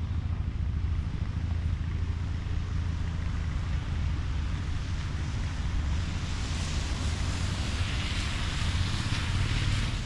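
Wind buffeting the camera microphone as a steady low rumble, with a hiss that swells over the last few seconds.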